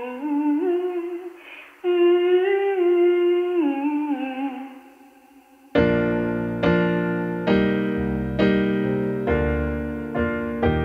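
A woman humming a slow, wordless melody. She stops just before the halfway point, and after a brief pause a digital piano comes in, playing chords a little more than once a second.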